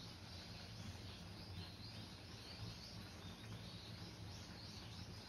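Quiet room tone: a steady low hum with faint, high chirps repeating throughout.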